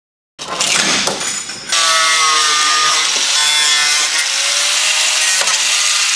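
Handheld cut-off tool slicing through a Ferrari Testarossa's front fender panel. It starts suddenly about half a second in and grows louder about two seconds in, a steady cutting noise with a whine that wavers in pitch as the tool bites into the metal.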